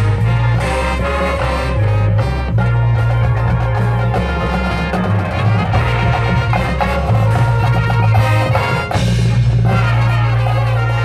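High school marching band playing its field show: brass chords over long held low bass notes, with drums and front-ensemble mallet percussion.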